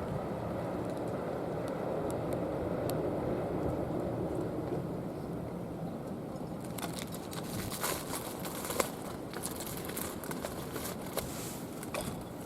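Steady low rumble, then a spell of sharp crackling and crinkling from about seven seconds in.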